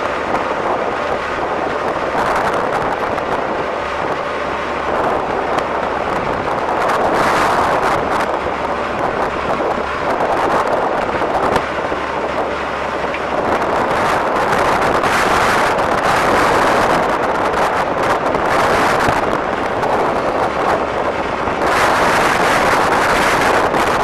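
John Deere 310SE backhoe's 4.5 L turbo diesel engine running, its sound swelling and easing every few seconds.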